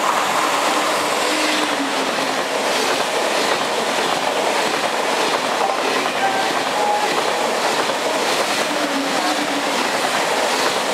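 Double-unit TGV Atlantique high-speed train passing through the station at about 120 km/h without stopping: a steady loud rush of wheels on rail and moving air, with a faint regular beat as the bogies go by.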